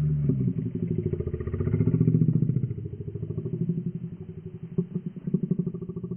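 A low, rattling growl made of rapid pulses, with its pitch sliding about near the start: a dinosaur-like creature sound.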